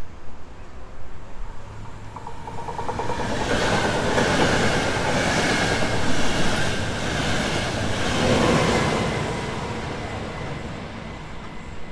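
A train passing through a station: its running noise swells up, is loudest through the middle with an even beat of wheels, and fades away near the end.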